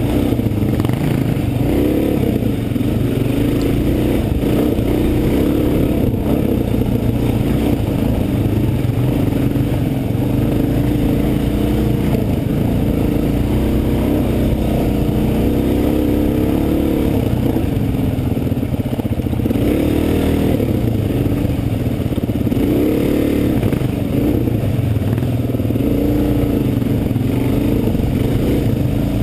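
Enduro dirt bike engine running hard, heard from on the bike, its revs rising and falling with the throttle as it rides rough ground, with some clatter from the bike over the terrain.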